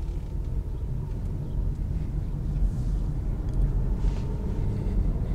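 Road and engine noise heard inside a moving car's cabin: a steady, low-pitched drone.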